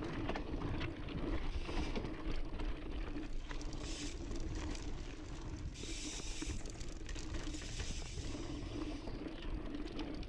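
Onboard sound of an Intense Sniper cross-country mountain bike riding fast down a dry, loose dirt trail. The tyres rumble on the dirt and the bike rattles steadily, with many small clicks and knocks from the bumps.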